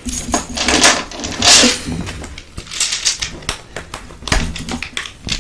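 Close-miked handling of packaged small Halloween decorations: irregular crinkling and rattling with sharp clicks as the little pieces shift and clatter in their container.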